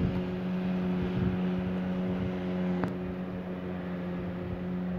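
Steady, even-pitched motor hum with a single sharp click about three seconds in.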